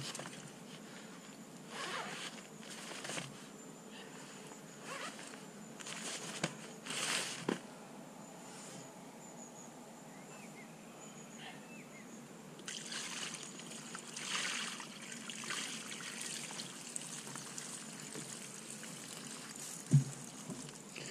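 Water trickling and dripping in short irregular bursts as a wet carp cradle and sling are handled. Near the end comes a single sharp knock.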